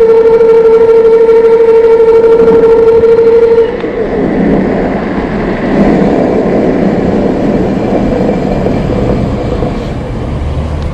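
A vehicle horn held down on one steady note, cutting off sharply about three and a half seconds in, followed by steady street traffic noise.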